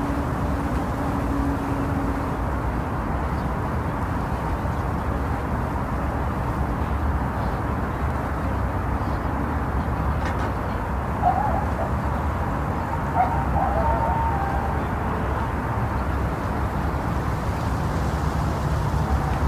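Steady, deep rushing noise of a womb-sound white-noise track played to lull a baby to sleep. A few faint, brief higher sounds come a little past the middle.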